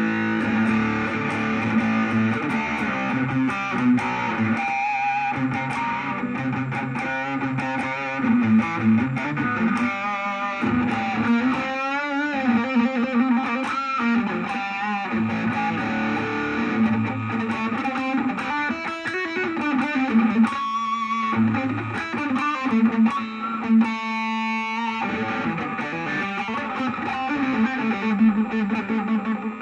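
Electric guitar played through a Vox VR30 Reverb combo amp with the gain turned up, giving an overdriven tone: lead lines and held notes, with wavering vibrato and bent notes around the middle.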